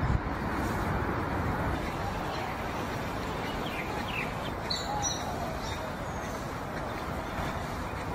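Steady outdoor background noise, with small birds chirping a few times, mostly in the middle of the stretch.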